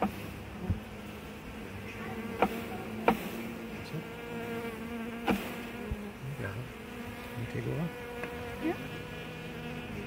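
A swarm of honey bees buzzing steadily in a nucleus box, packed thick on the comb and branches, with a few sharp knocks as the box and branches are handled.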